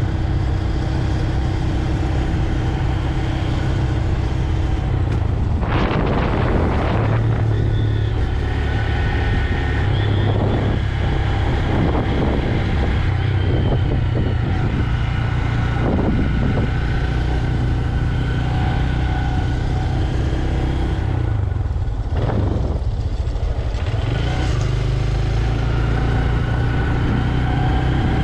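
Stock 2025 Honda Grom's single-cylinder engine running steadily while being ridden, through its stock exhaust, with several short rushes of noise over it.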